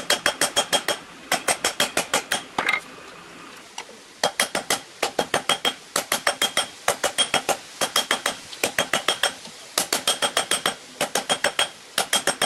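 Hand hammer striking red-hot steel on an anvil, forging the end of an old hammer head: quick runs of about six or seven blows a second with a ringing of the anvil, broken by short pauses and one longer pause about three seconds in.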